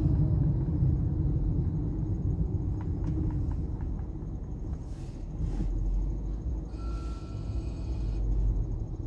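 Steady low road and engine rumble heard inside a moving car's cabin. A few faint clicks come about three seconds in, and a brief faint tone sounds near the end.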